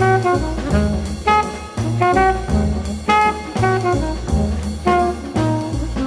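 Instrumental jazz with brass horns and a drum kit.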